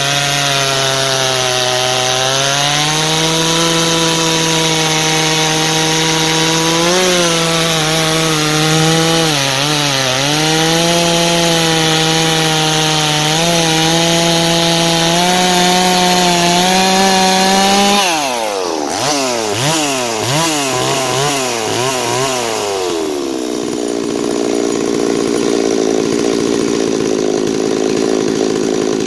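Farmertec Holzfforma G660 two-stroke chainsaw cutting through a big dry hardwood log at full throttle, its engine pitch sagging and recovering under the load. About two thirds of the way in, the saw comes out of the cut: the revs rise and fall sharply a few times, then settle into a steady, unloaded run.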